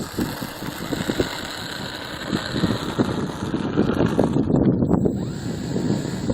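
Strong gusty wind buffeting the microphone, an uneven low rumble that swells and drops from moment to moment.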